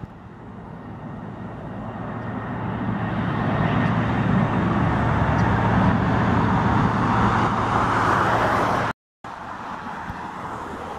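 Jet engines of a climbing FedEx DC-10-series trijet freighter, growing louder over the first few seconds and then staying loud with a low steady hum beneath. About nine seconds in the sound cuts off abruptly, and a quieter, more distant jet noise follows.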